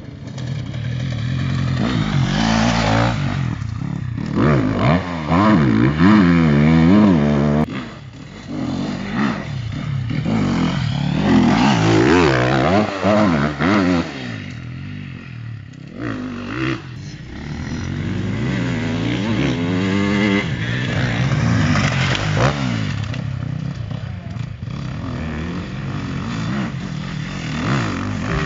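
Sherco SEF 300 four-stroke single-cylinder enduro motorcycle being ridden hard off-road, its engine revving up and down repeatedly as the throttle is opened and closed.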